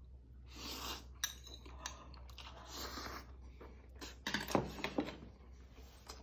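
A person eating ramen-noodle tteokbokki close to the microphone: a slurp of noodles about half a second in, then chewing with wet mouth clicks and a few sharp clicks and taps, thickest around four to five seconds in.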